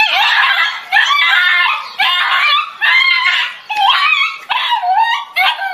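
Dog yelping in fright, a run of about seven high-pitched, wavering cries in quick succession, while it is pinned under a stuffed toy tiger.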